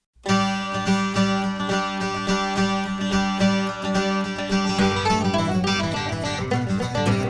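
Instrumental background music with plucked strings, starting suddenly just after the beginning.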